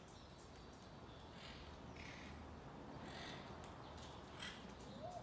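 Monk parakeets giving a few faint, harsh squawking calls, about four in all, with a short lower note near the end.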